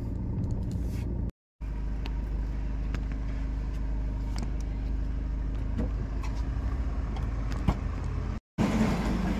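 Inside a car: a steady low rumble of engine and road noise, with a few faint clicks and one sharper click near the end. The sound drops out completely twice for a moment.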